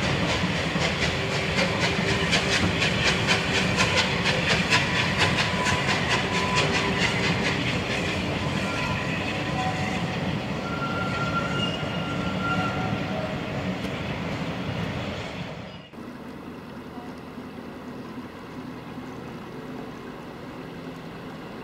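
Bulleid West Country class steam locomotive 34007 'Wadebridge', a three-cylinder engine, passing with a train of coaches: rapid, regular beats over the rumble of the train, with a few brief high squeals as the coaches go by. About 16 seconds in the sound cuts abruptly to a quieter, steady engine sound of a canal narrowboat under way.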